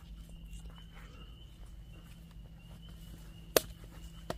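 Quiet woods at night with a faint, steady high-pitched insect drone and light footstep rustles. A sharp click about three and a half seconds in is the loudest sound, and a smaller one follows near the end.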